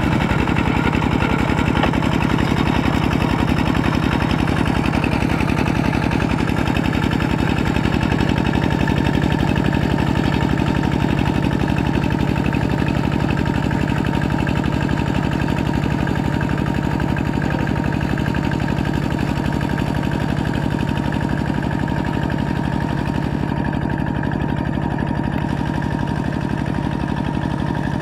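Kubota RT120 walking tractor's single-cylinder diesel running steadily with a fast, even chug as it pulls its cage wheels through deep paddy mud, easing off slightly near the end.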